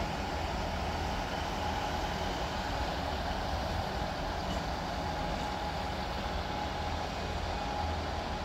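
Northern diesel multiple unit running as it pulls slowly along the platform: a steady engine drone with a thin, steady whine over it.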